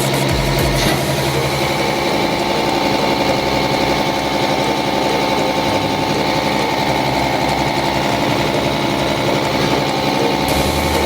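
Diesel fuel injection pump running at high speed: a steady mechanical run with a fast rattle. The low hum shifts slightly about halfway through.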